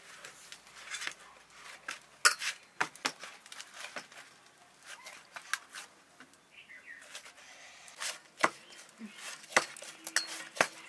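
Hands kneading rice-flour dough in a steel plate: soft pressing and rubbing of the dough against the metal, with irregular sharp clicks and knocks on the plate, loudest about two seconds in and again near the end.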